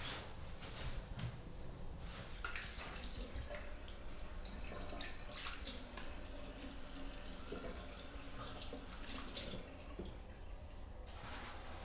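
Bathroom tap running into a washbasin, with splashing as someone washes at the sink. The water comes on about two seconds in, after a few light knocks, and stops near the end.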